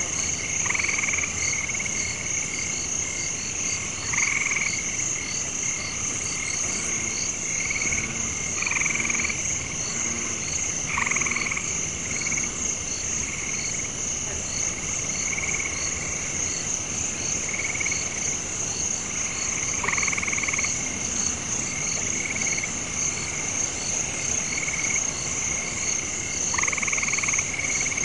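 Night chorus of frogs and insects: a steady high-pitched insect drone with a fast regular ticking, and frogs croaking in short calls every two to three seconds.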